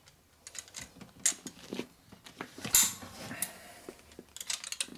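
Hand tools and metal engine parts clicking and clinking as bolts on a Harley shovelhead engine are run in: scattered sharp metal clicks, the loudest a little before the middle with a brief ring after it, and a quick run of clicks near the end.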